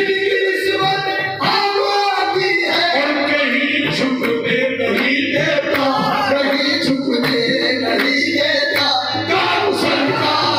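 Qawwali performance: voices singing together over a dense instrumental accompaniment with sharp percussive strokes.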